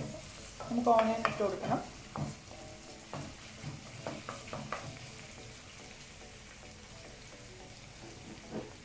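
Chopped garlic and green chili sizzling in oil in a stainless steel wok, stirred and scraped with a wooden spatula. The spatula taps and scrapes are scattered through the first half, then the sizzle carries on steady and faint. A brief voice about a second in is the loudest sound.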